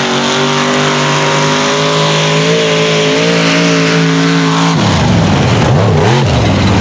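Mega mud truck engine revving up and held at high rpm as the truck powers through the mud pit, then dropping off about five seconds in and blipping up and down.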